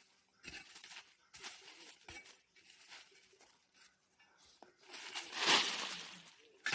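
Hoe and shovel chopping and scraping into forest soil and dry leaf litter while digging out a level spot: scattered short strikes, a longer, louder scraping rustle about five seconds in, and a sharp strike at the end.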